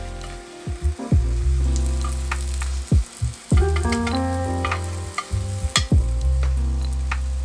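Background music with held bass notes and piano-like chords, over the sizzle of egg frying in a rectangular tamagoyaki pan, with a few sharp clicks of chopsticks against the pan.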